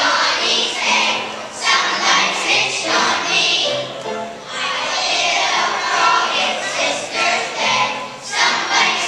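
Children's choir singing together.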